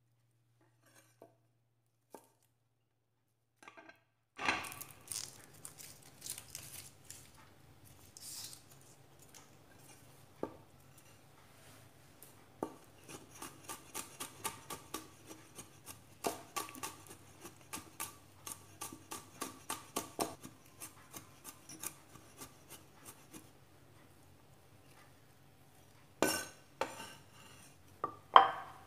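Cleaver chopping garlic on a wooden cutting board: the blade knocks on the board in runs of quick strokes, about three a second at its busiest, after a few seconds of near silence. A few louder knocks come near the end.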